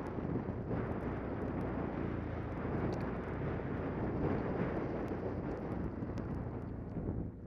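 Wind buffeting a helmet-mounted camera's microphone while riding an Arctic Cat M1100T turbo snowmobile, with its turbocharged four-stroke three-cylinder engine, fitted with a custom exhaust, running steadily underneath. There are a few light ticks scattered through.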